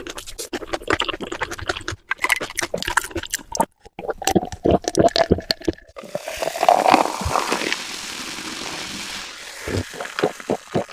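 Close-miked eating: crispy fried food being bitten and chewed, with a thick run of irregular crunches and wet snaps, then a steadier noisy stretch in the second half.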